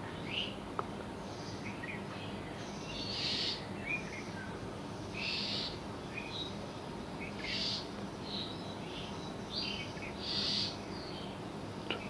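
Faint wild bird calls: a harsh, hissing call repeated four times, about every two to three seconds, with short high chirps between, over a soft steady background hiss.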